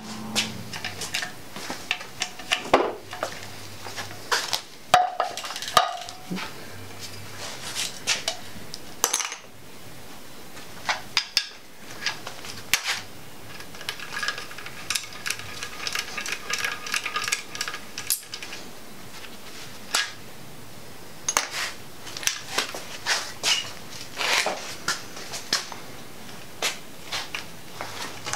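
Hand ratchet on a long extension clicking in quick runs as bolts are loosened and backed out of an LS 5.3 engine block, with scattered metallic clinks of tools and loose bolts.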